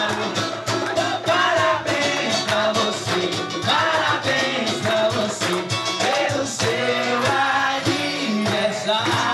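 Music: a song with a sung vocal line over a steady beat.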